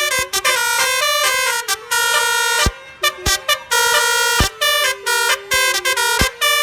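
A basuri multi-trumpet musical air horn on an Isuzu Traga truck, driven by a DAV air horn tone module, plays a quick melody of short blasts and held notes. There is a brief pause about three seconds in.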